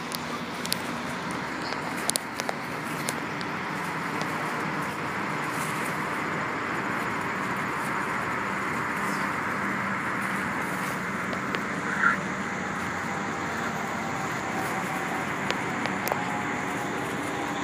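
Fireboat's water cannons spraying: a steady rushing hiss of water, with a low hum from the boat's engines or pumps underneath.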